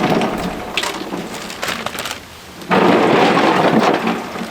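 Ice and water being poured into a turkey brining container: a loud rushing, splashing pour with clinks, in two spells, the second starting a little under three seconds in.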